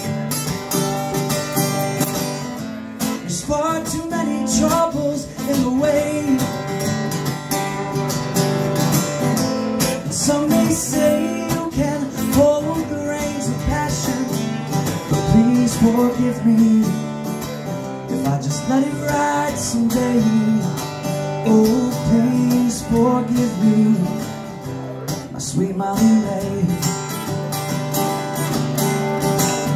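Two acoustic guitars played together live, strummed chords with a melody line running over them.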